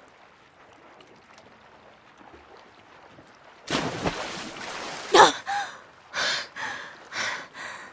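After a few seconds of faint hiss, a sudden loud rush of noise, then a young woman's voice gasping in several hard breaths.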